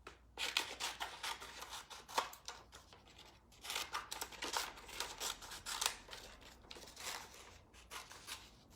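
Scissors snipping through paper in a quick run of short cuts as the sides of a printed paper template are trimmed, with light paper rustling.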